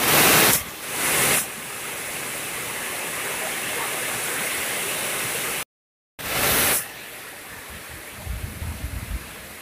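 Heavy rain falling on a pond's surface, a steady hiss, with loud rushing bursts at the start and again about six seconds in, just after the sound drops out for a moment. Low rumbling near the end.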